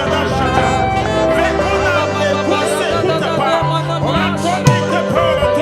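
Slow instrumental worship music with sustained chords and held bass notes, under voices praying aloud.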